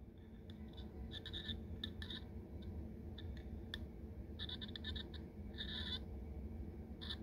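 Piezo speaker from a carbon monoxide detector, driven by a frequency generator at a low frequency, giving faint, irregular clicks and ticks in short clusters. The drive is too weak and too low for a clear tone.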